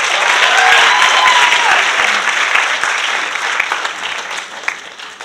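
Theatre audience applauding, loudest about a second in and fading toward the end. A long drawn-out cheering shout rises and falls over the clapping near the start.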